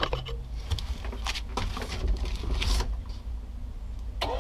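Low background rumble with scattered handling clicks and rustles, then near the end a Bennett V351 12-volt trim tab hydraulic power unit's electric pump motor starts with a steady hum that dips slightly as it takes up load, pumping fluid to purge air from the trim tab lines.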